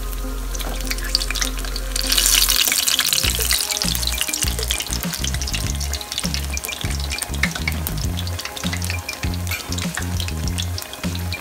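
Eggplant pakoras deep-frying in hot oil: a steady crackling sizzle of popping bubbles. The sizzle flares up about two seconds in as the fritters are turned with a slotted spoon, then eases.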